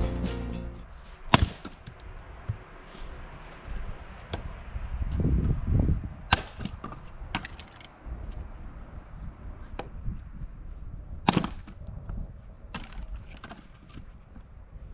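Axe striking and splitting tamarack firewood rounds. Sharp chops come a second or more apart, the loudest about a second and a half in and again past the middle, with a duller low rumble about five seconds in. Music fades out in the first second.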